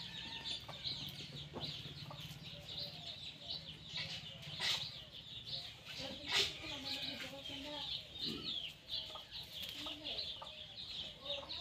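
Chickens clucking with small birds chirping over them: many short overlapping calls with no pause, a few louder ones near the middle.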